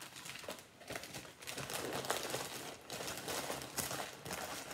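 Plastic Ziploc storage bag crinkling in irregular bursts as it is folded and pushed back into its cardboard box.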